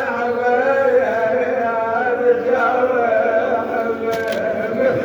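A male Husseini reciter chanting a mournful Shia lament (na'i) in Arabic, drawing out long notes that slide slowly in pitch.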